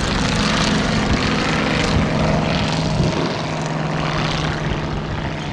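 Small piston engine and propeller of a vintage light monoplane in flight, running steadily. The engine note drops a little about three seconds in as the aircraft passes.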